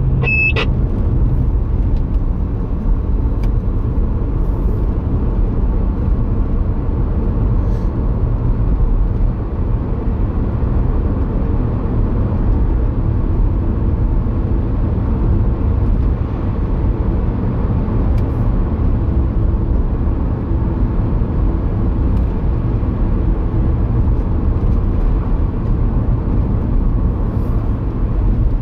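Car cabin noise while driving at steady speed: a low, steady rumble of road and engine noise. A short high beep sounds about half a second in.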